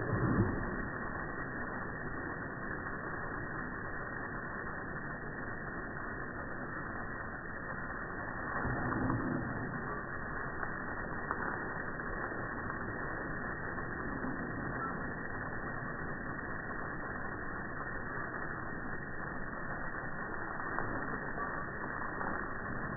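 Steady rushing hiss of a garden hose spraying water onto a lawn, with brief swells near the start and about nine seconds in.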